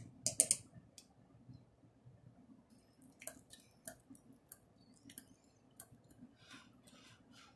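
Faint, irregular clicks and light taps of a kitchen utensil against a bowl as diced garlic is added to a dip.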